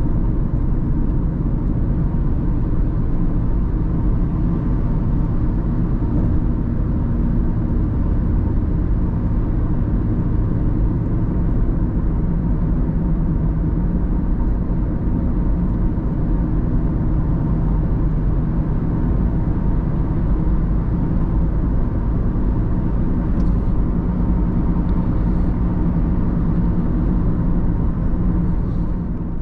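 Car driving along at a steady pace: constant engine and tyre noise, strongest in the low range.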